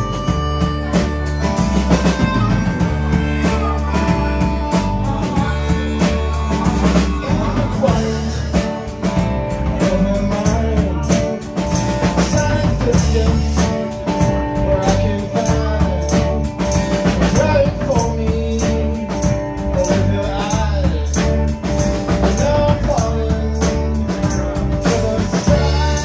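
Live rock band playing: drums, electric guitars and keyboard, with a tambourine shaken in time.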